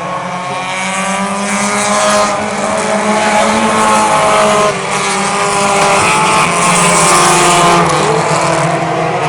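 Lightning Bug class race cars racing on a short oval, several engine notes overlapping and shifting in pitch as the cars pass. The sound grows louder toward the later part.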